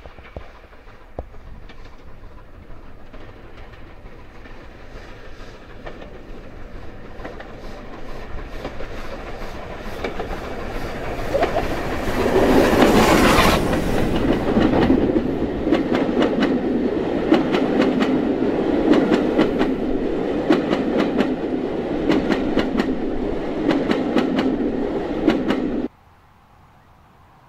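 Steam-hauled passenger train approaching and passing close by. Its running noise grows steadily for about twelve seconds and is loudest as the locomotive passes in a cloud of steam. The coaches follow with wheels clicking over the rail joints, and the sound cuts off suddenly near the end.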